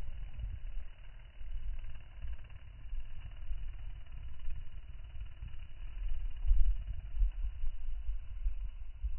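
Wind buffeting a phone microphone: a low, uneven rumble that comes in gusts.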